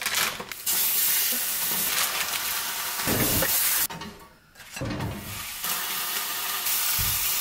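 Bread and a slice of deli meat sizzling in a frying pan, a steady hiss that drops out briefly about four seconds in.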